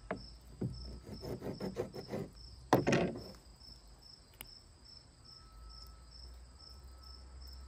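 Wet fish skin being peeled by hand from a catfish fillet: a run of short sticky rips and squelches, loudest about three seconds in, then quiet handling. A steady insect chirp, about two a second, runs underneath.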